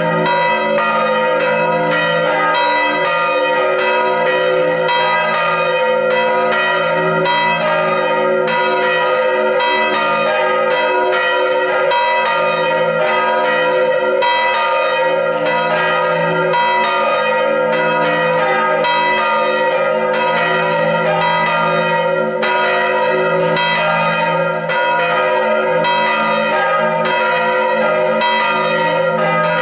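Three swinging bronze church bells, tuned to D-sharp, A-sharp and B, ringing together in full swing: a steady, loud stream of overlapping clapper strikes.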